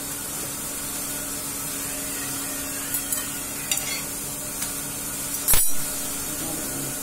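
A metal utensil lifts and flips a roti on an iron tawa: a few light clicks and scrapes, then one sharp clack of metal on the griddle about five and a half seconds in. Under it runs the steady hiss of the gas burner set on high.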